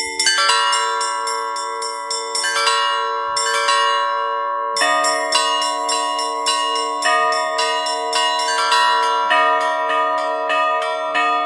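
Orthodox church bells rung by one bell ringer in a rhythmic peal: quick patterns on the small high bells over a steadily repeated middle bell, with a heavier stroke about every two seconds.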